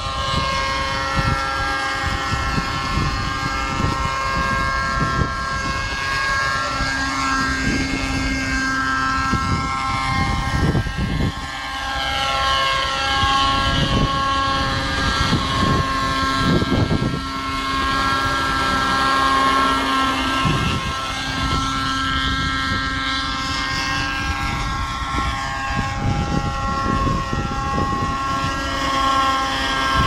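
Raptor 50 Titan nitro RC helicopter flying: its two-stroke glow engine and rotors whine steadily, the pitch gliding up and down as the helicopter moves about. Strong wind gusts rumble on the microphone underneath.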